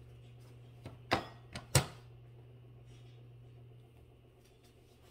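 Two sharp knocks about two-thirds of a second apart, with a couple of fainter clicks around them, over a steady low hum that fades out about four seconds in.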